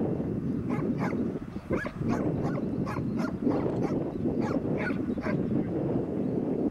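A dog barking in a quick run of about a dozen short, sharp barks that stops about five seconds in, over a steady low rumble.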